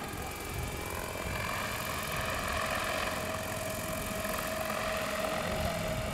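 Electric MD500-scale RC model helicopter in flight carrying a large cross slung beneath it on a line: a steady motor and rotor whine over rotor noise, slightly louder in the middle.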